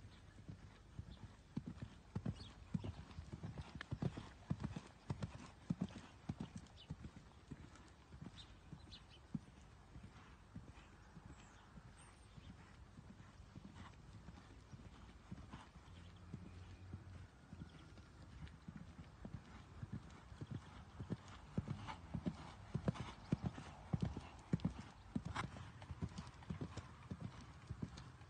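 Hoofbeats of a ridden young horse trotting on soft sand arena footing: a steady run of dull thuds, louder in the second half.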